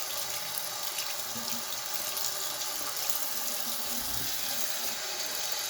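Water running steadily from a bathroom sink tap into the basin, left on while it warms up.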